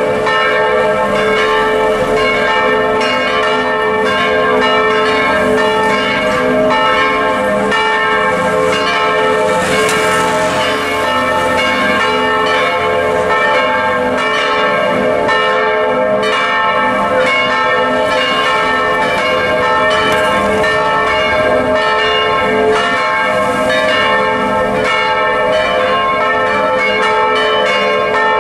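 Several church bells swinging in full peal, rung by belt-driven wheel mechanisms, with their strokes overlapping in a continuous, steady clangour of many tones.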